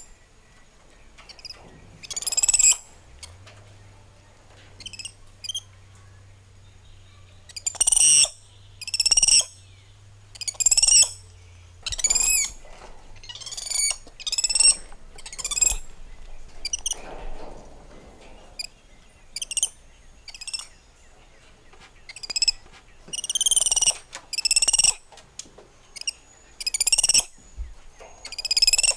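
Spider monkeys calling: short, high-pitched squeaky chirps, one every second or so in irregular runs with brief pauses.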